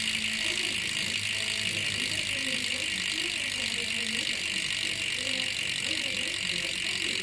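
Freehub of a D772SB bicycle rear hub freewheeling, its pawls clicking so fast that the ratchet makes a steady, high-pitched buzz.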